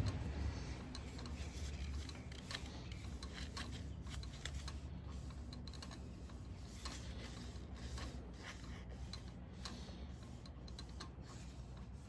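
Wood lathe running with a low steady hum while sanding sealer is rubbed onto the spinning wooden shift knob, with scattered light clicks and rubbing.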